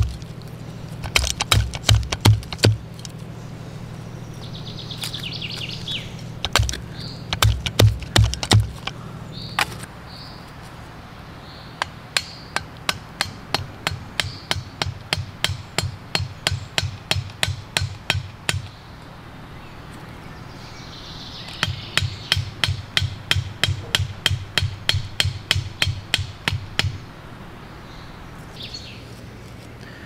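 Wooden stakes knocked into the ground with the back of a curved machete: runs of sharp wooden knocks at about three a second, with short pauses between the runs.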